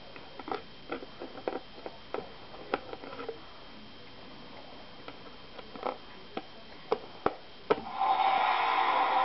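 Scattered clicks and knocks of a plastic TARDIS toy being handled. About eight seconds in, the toy starts playing one of its electronic sound effects through its small speaker: a louder, steady sound with a few held pitches.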